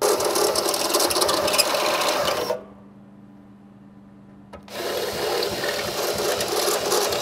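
Cordless drill boring holes through a pickup's bed side, running in two spells of about two and a half and three and a half seconds with a short pause between them.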